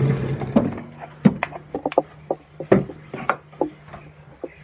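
A utensil scraping and knocking against the inside of a wooden mortar, tapping the pounded spice paste out onto a plate in a series of uneven sharp knocks. The mortar is then set down on the counter.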